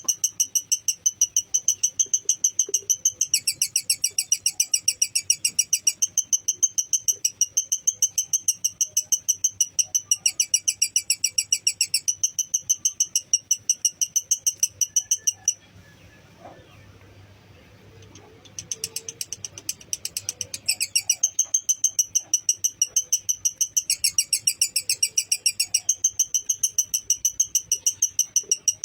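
Lovebird chattering in a long, fast run of sharp, high chirps, the drawn-out 'ngekek' trill. It breaks off for about three seconds past the middle, then starts again.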